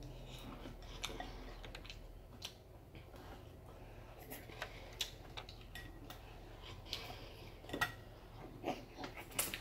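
Eating sounds of seafood gumbo: a spoon clinking against the bowl and wet chewing, with irregular sharp clicks, several of them in the second half.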